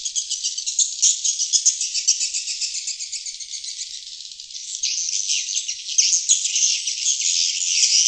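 Recorded lure call of sriti swiftlets: a dense, unbroken chorus of rapid high chirps and twitters with no low sound beneath it. It eases a little in the middle and comes back louder about five seconds in.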